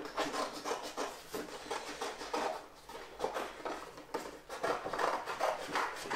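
Scissors snipping through a sheet of coloured paper, many quick irregular cuts, with the paper rustling as it is turned.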